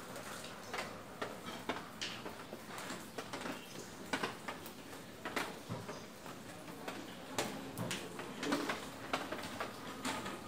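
Scattered sharp clicks and knocks at irregular intervals, among them checkers pieces being set down on a wooden board.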